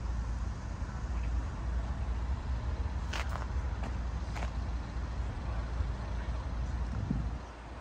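Low engine rumble of a road vehicle at the crossing, with a few sharp clicks in the middle; the rumble falls away near the end.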